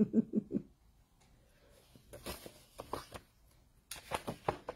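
Pages of a picture book being turned by hand: faint paper rustling, with a cluster of short crisp page sounds near the end.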